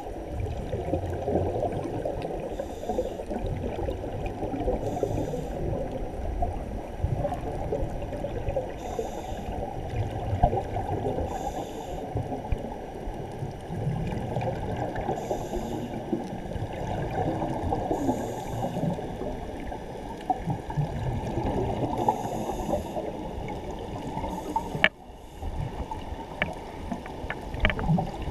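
Muffled underwater noise picked up through a waterproof camera housing: water moving and gurgling against the camera during a scuba dive. A sharp click about 25 seconds in, after which the sound drops quieter for a moment, followed by a few small clicks.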